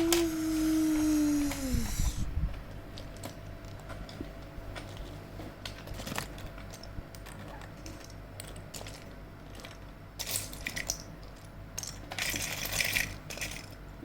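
A steady hum that slides down in pitch and dies out about two seconds in, then scattered light clicks and clatter of small hard plastic toy pieces being handled and set down.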